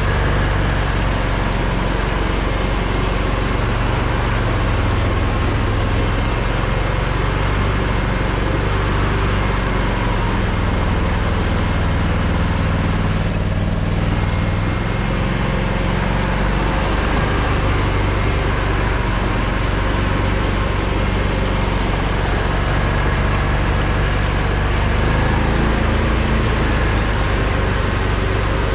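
Engine of an Argo Aurora 8x8 950 Huntmaster amphibious ATV running steadily as the machine drives on half tracks, its pitch drifting up and down a little with the throttle.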